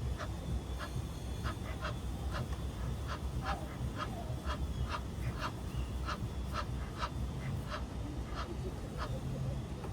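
A duck quacking in a long run of short calls, about two a second, over a steady low rumble.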